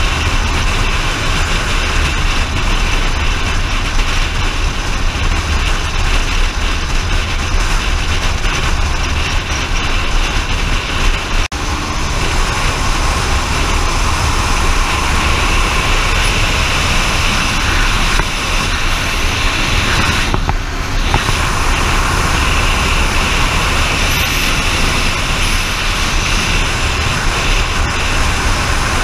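Steady rush of wind and road noise from a vehicle travelling at speed, with a heavy low rumble of wind buffeting the microphone. The rush eases briefly about 20 seconds in.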